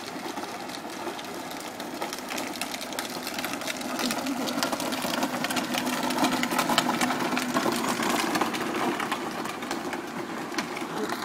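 Small motor of a child's ride-on quad buzzing as it drives up and passes close by, its tyres crunching on gravel. It grows louder and is loudest as it goes past, about six to seven seconds in.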